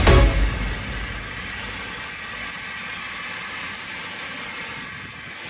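Wood lathe spinning an oak spindle while a hand chisel cuts it: a steady, even running noise. Music fades out in the first second.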